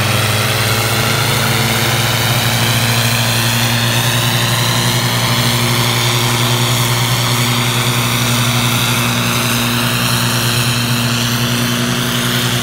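Two diesel tractors running hard under heavy load, chained back to back in a tractor tug-of-war, with a steady loud engine drone that holds for the whole stretch. Black exhaust smoke shows the engines are labouring.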